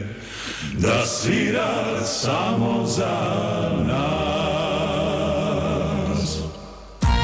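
Live band performing a Macedonian folk-pop song with sung vocals over sustained accompaniment. The music fades near the end, then starts again abruptly with sharp percussive hits.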